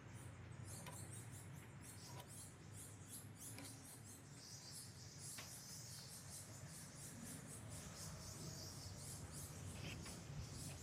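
Faint scratching of a mechanical pencil drawing along a wooden marking block, with a few light ticks as the block is shifted on the board, over a low steady hum.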